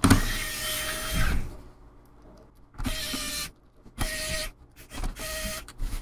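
Small electric precision screwdriver whirring in four bursts, a longer one at the start and three short ones later, as it runs laptop bottom-cover screws in loosely.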